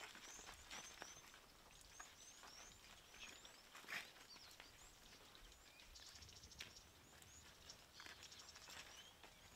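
Quiet bush ambience: small birds chirping in short, quick repeated notes, with a few faint clicks and one soft knock about four seconds in.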